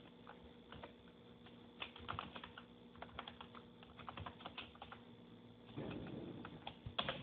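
Computer keyboard typing, faint: a quick, irregular run of key clicks as a short line of text is typed, with a few louder keystrokes near the end.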